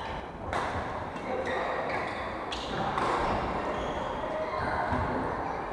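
Badminton play in a large hall: a few sharp racket strikes on shuttlecocks, short high squeaks of court shoes on the wooden floor, and background voices.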